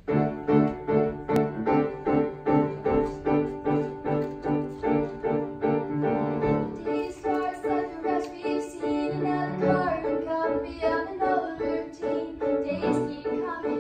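Grand piano starting abruptly into a rhythmic accompaniment, with chords struck about twice a second. A young choir's voices seem to come in over it about halfway through.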